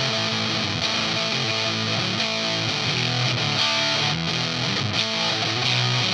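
Electric guitar played through a Sola Sound Mk IV Tone Bender fuzz pedal, the Esprit Blanc: a thick, distorted fuzz tone on a run of sustained notes that change every fraction of a second.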